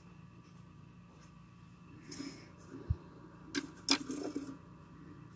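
Mostly quiet room with a few faint clicks and taps and one soft, low thump about three seconds in.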